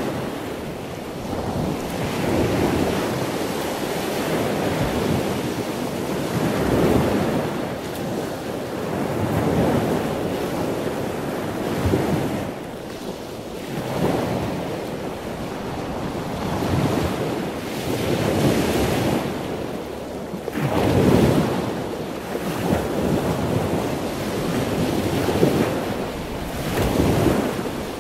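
Scuba diver's breathing heard underwater through the camera housing: regulator hiss and bubbling exhalations that swell and fade every two to three seconds.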